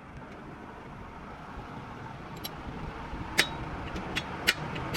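A motor vehicle running and growing steadily louder, with several sharp metallic knocks in the second half, the loudest two about a second apart.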